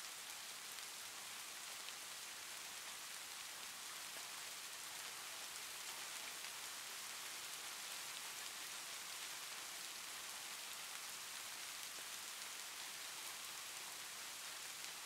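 Steady faint hiss, even throughout, with no other sound.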